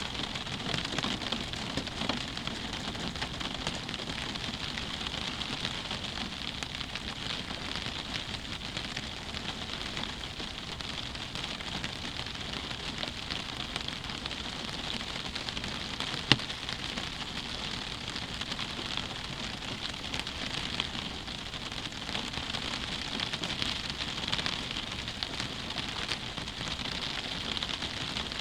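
Steady rain pattering on a window pane, an even hiss dotted with fine drop ticks, with one sharp louder drop tick about halfway through.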